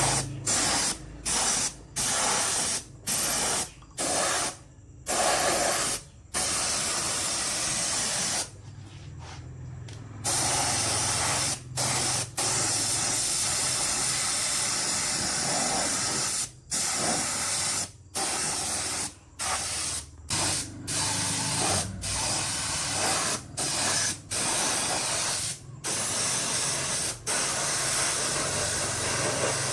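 Compressed-air spray gun hissing in repeated bursts, from a fraction of a second to several seconds long, as the trigger is pulled and released, with a low steady hum beneath.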